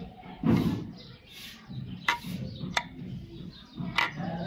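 Hand work on a six-cylinder inline diesel fuel injection pump: a dull knock about half a second in, then a few sharp clicks of small parts being handled and fitted.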